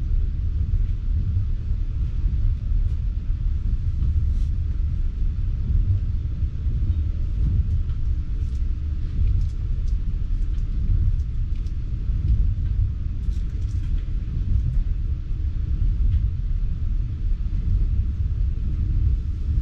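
Steady low rumble of a passenger train running at speed, heard from inside the carriage: the wheels on the rails and the car's running gear, with a few faint light ticks now and then.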